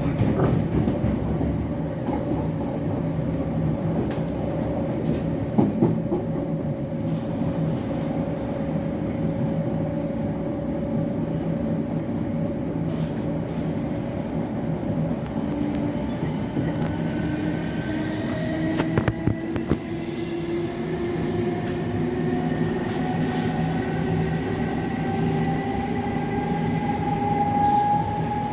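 Class 707 electric multiple unit on the move: a steady rumble of wheels on track with a few sharp clicks, and a traction motor whine that drifts slightly down, then from about halfway rises steadily in pitch as the train picks up speed.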